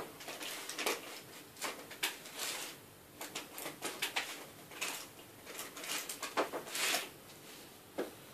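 Irregular small clicks and scrapes of a Nokia Lumia 520's parts being prised off and handled at close range, with a sharper click about eight seconds in.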